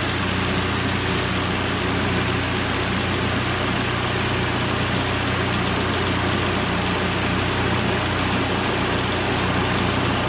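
2013 Hyundai Elantra's four-cylinder engine idling with the air conditioning running and the electric cooling fan blowing, a steady, even hum and rush of air.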